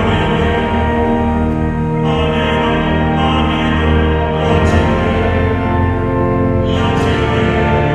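Music made of long, held chords over strong low bass notes, the chord changing twice.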